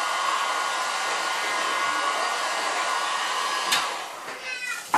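Handheld hot-air blower running steadily, softening the adhesive under the cracked touchscreen glass of a Samsung Galaxy Tab 3 Mini so the glass can be lifted off. It stops about three and a half seconds in.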